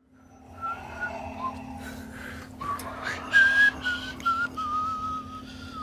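A man whistling a wavering tune, with a few short clicks and knocks of handling and a steady low hum underneath.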